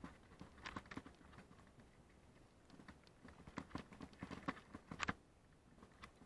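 Mountain bike rolling over loose gravel: stones crunching and clicking under the tyres and the bike rattling, in scattered clusters of short knocks, the sharpest about five seconds in.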